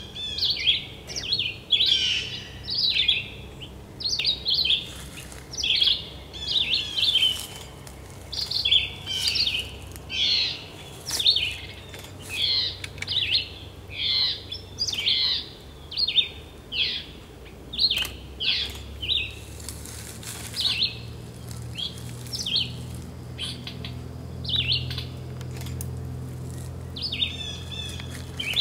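Red-eyed vireo singing: short, separate phrases of a few quick notes each, repeated over and over about once a second, with slightly longer gaps between phrases in the second half.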